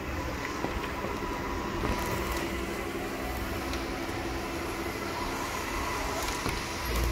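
Ecovacs Deebot OZMO T8 AIVI robot vacuum running on a hardwood floor during a vacuum and wet-mop pass: a steady whir from its suction motor and brushes, with a few light clicks.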